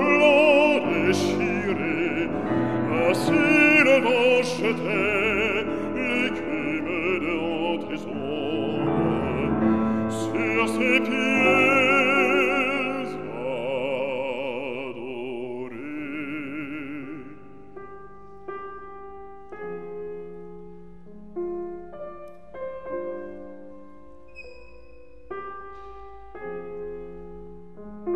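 A male classical singer sings with a wide vibrato over grand piano accompaniment. About two-thirds of the way through, the voice stops and the piano plays on alone.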